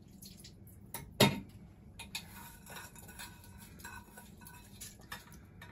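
Kitchen utensils and dishes handled at the table: one sharp knock about a second in, then light scattered clinks and clicks of a spoon and bowls.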